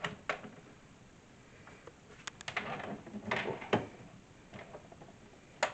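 Scattered knocks and clicks, with a short scrape, as the wooden panels and metal hinges of a storage box are handled and lined up for screwing; a sharper knock comes near the end.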